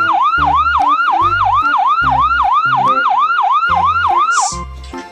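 Ambulance siren in a fast yelp, its pitch sweeping down and snapping back up about four times a second. It cuts off near the end.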